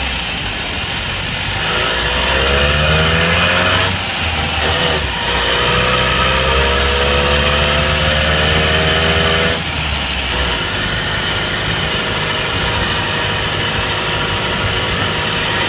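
Austin Morris LD van driving, heard from inside the cab, on its first drive in 45 years: the engine runs under load with a whine that rises as it speeds up. The whine breaks off about four seconds in, climbs again, then cuts off at about ten seconds, after which the engine runs steadier and a little quieter.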